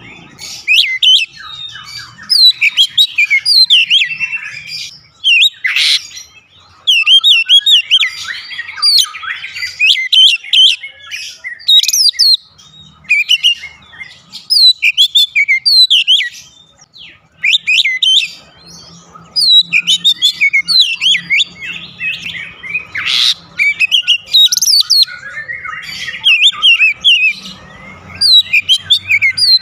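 Oriental magpie-robin singing a long, varied run of quick, high chirps and whistles, broken by a few short pauses.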